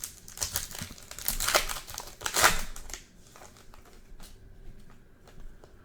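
Foil trading-card pack wrapper being crinkled and torn open by hand, a flurry of crackling for about three seconds, loudest twice near the middle, then a few faint clicks of cards being handled.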